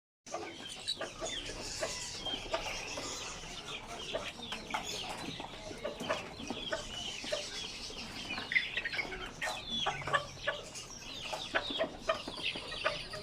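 Chorus of market birds: chickens clucking amid dense, continuous chirping of many small birds.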